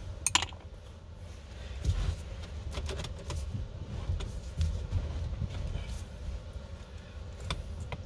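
Scattered light clicks and clinks of a T25 Torx driver and hands working the screws and trim at a car's steering column, over a steady low hum.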